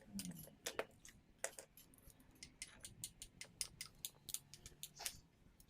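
Light, irregular clicks and taps of small hard parts being handled, about two or three a second.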